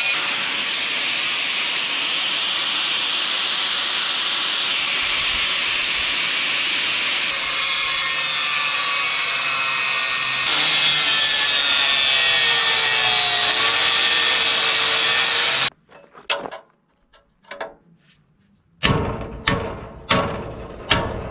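Angle grinder running against the steel chassis frame rail: a steady, loud grinding with a whine that dips in pitch briefly as it loads up, then stops abruptly about 16 seconds in. Near the end, a few hard hammer blows on a steel bracket, each ringing briefly, under a second apart.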